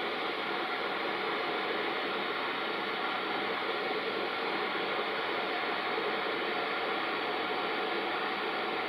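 Steady rushing hum of an electric locomotive with its cooling blowers running, even and unbroken, with faint steady tones under the hiss.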